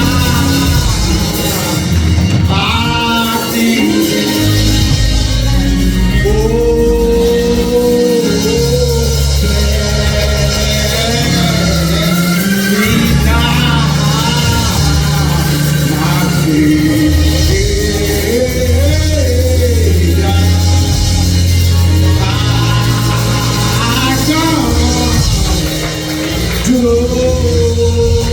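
Live church band music, with steady bass notes under a wandering melody line and some singing.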